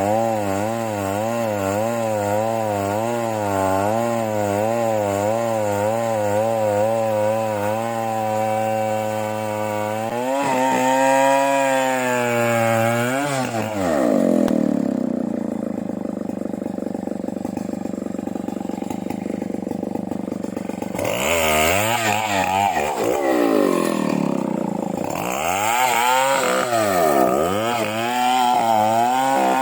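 Two-stroke chainsaw cutting into a large merbau hardwood tree, its engine pitch wavering under load. About halfway through it drops lower and labours for several seconds, then revs up and down repeatedly.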